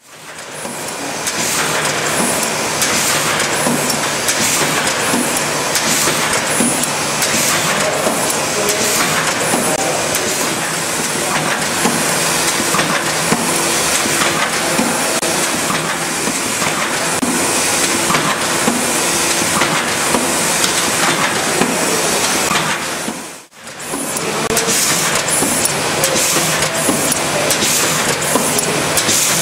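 Foliant Pollux 760 SF film laminating machine running: a steady, dense mechanical hiss and rattle from its rollers and sheet feeder, with faint ticking. The sound drops out briefly about three-quarters of the way through.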